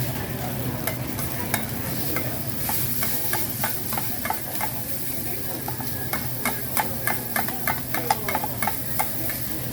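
Oyster egg fried rice sizzling as it is stir-fried, with a metal spatula clanking against the pan; the strikes become regular, about three a second, in the second half.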